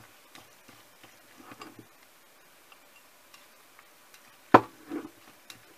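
Chopsticks clicking and tapping against a bowl while stirring instant noodles in spicy sauce, with one sharp, louder knock about four and a half seconds in and a softer one just after.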